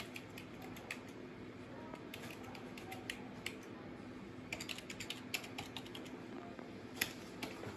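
Typing on a wireless computer keyboard: short key clicks in irregular runs, with a steady low hum underneath.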